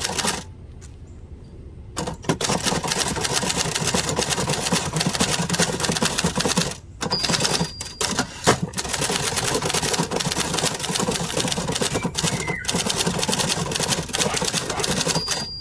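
1970s Adler Gabriele 25 manual typewriter being typed on fast, keys and typebars clacking in a rapid run. There is a short pause about a second in, and brief breaks around halfway.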